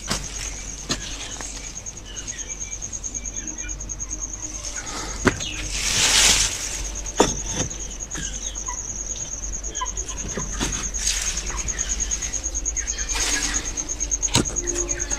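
A cricket trilling steadily on one high, rapidly pulsing note, with scattered sharp knocks and a few brief rustles over it.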